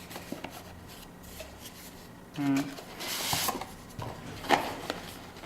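Hands handling the camera's box contents: light clicks and taps, with a rustle of paper or plastic packaging a little after the middle.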